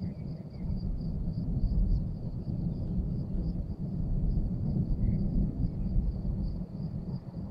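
Low, uneven rumbling of thunder from a supercell thunderstorm, over the steady high trill of crickets.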